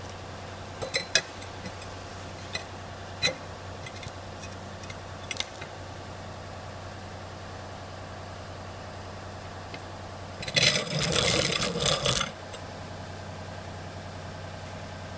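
Diesel engine-driven welder (Miller Big Blue 400D) running steadily in the background as a low hum. A few knocks come in the first few seconds, and about ten seconds in there is a louder rough scraping noise lasting about two seconds.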